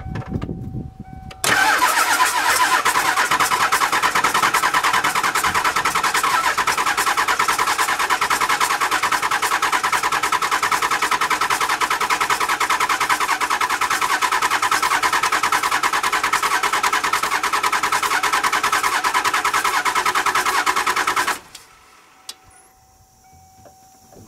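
Starter cranking a 7.3L Power Stroke V8 turbodiesel in a fast, even rhythm for about twenty seconds without it catching, beginning about a second and a half in and stopping abruptly. This is long cranking after an injector swap, while oil and fuel work back through the opened-up injector system.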